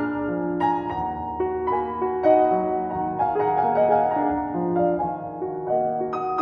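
Background music led by piano, a slow line of notes struck one after another over held lower tones.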